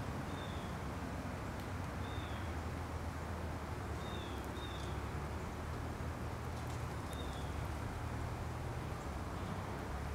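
Outdoor ambience: a small bird gives a short, falling chirp about five times, a second or two apart, over a steady low rumble.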